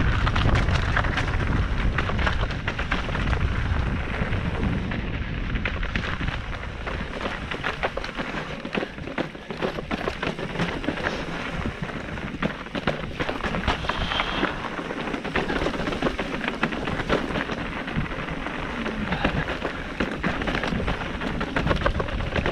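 Mountain bike riding down a rocky singletrack: a dense crackle of tyres rolling over loose stones and the bike rattling on the bumps. Wind rumbles on the microphone, heaviest in the first several seconds.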